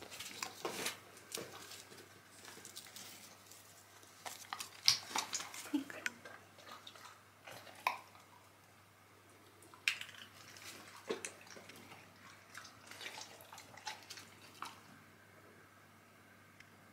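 Faint, scattered small clicks and taps of handling noises in a quiet small room, with a low steady hum beneath.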